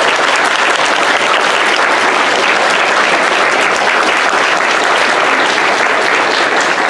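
A large audience applauding, many hands clapping in a steady, dense patter that tapers just after the end.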